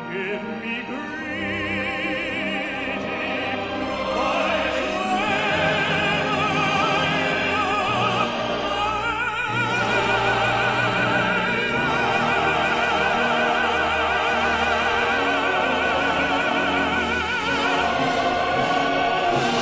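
Operatic tenor singing with a full symphony orchestra. The music swells louder about four seconds in, and the tenor then holds a long high note with wide vibrato.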